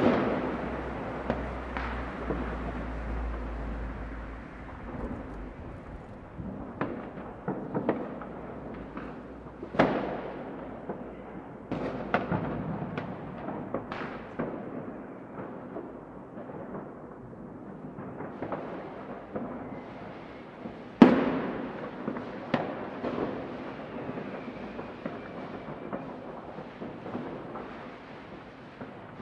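New Year's Eve fireworks going off: many scattered bangs at irregular intervals over a continuous rumble of distant explosions. The loudest, sharpest bang comes about two-thirds of the way through.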